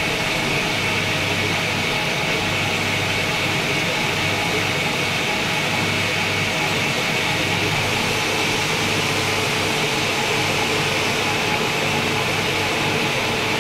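Metal-working lathe running steadily: an even machine hum and hiss with a faint whine that drops to a lower pitch about halfway through.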